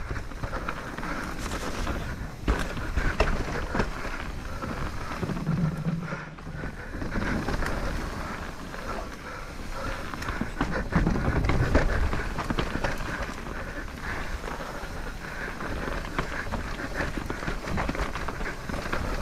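Santa Cruz Bullit electric mountain bike ridden down a slick dirt trail: steady tyre rumble with the chain and frame rattling and frequent knocks over bumps, and wind buffeting the GoPro's microphone.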